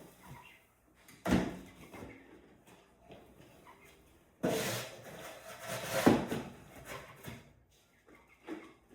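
Knocks and scraping rustles of a bird cage being cleaned out, wood shavings being moved about: a sharp knock about a second in, then a few seconds of rustling and scraping that end in a louder knock.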